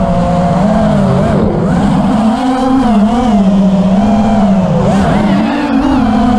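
FPV racing quadcopter's electric motors and propellers whining loudly on the onboard camera, the pitch rising and falling continuously with the throttle, with a brief dip about a second and a half in.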